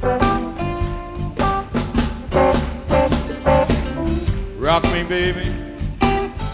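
Background music with a steady beat: an upbeat band with drums and guitar, and a singing voice that slides in pitch about two-thirds of the way through.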